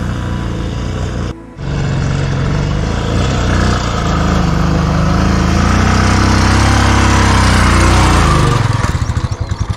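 Royal Enfield Classic 350's single-cylinder engine running hard under load as it pushes up a sandy dirt track, its revs rising and falling. The sound cuts out briefly about a second and a half in. Near the end the revs drop to a low, pulsing idle.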